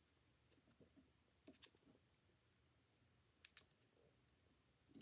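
A few faint clicks of small metal phonograph carriage parts and screws being handled, in two brief clusters, against near silence.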